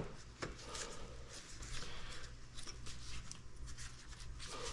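Light handling noise of a motorcycle wiring harness being worked into place: scattered rustles and small clicks of wires, plastic clips and connectors, over a steady low hum.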